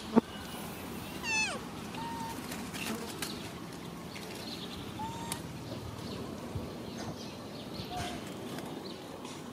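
Macaques calling: a falling squeal about a second in, then short thin coos every few seconds. A sharp click comes just at the start.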